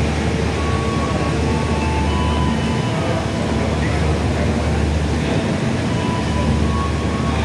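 Diesel-electric locomotive's engine running with a steady low rumble as it shunts with passenger coaches. Faint whining tones come and go above it.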